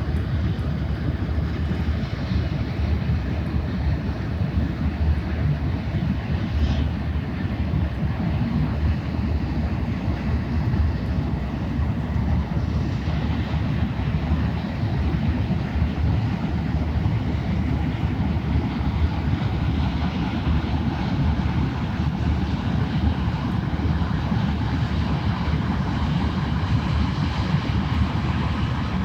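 Steady low engine drone of a passing ship or barge, even throughout.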